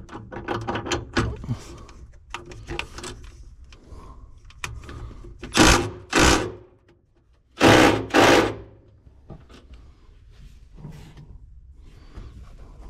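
A ratchet clicking on a 14 mm bolt. Then four short bursts, in two pairs, from a cordless power tool's motor.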